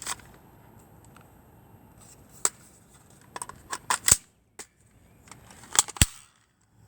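Airsoft gun being handled and fired: a string of sharp clicks and snaps, the loudest about four seconds in and twice around six seconds in.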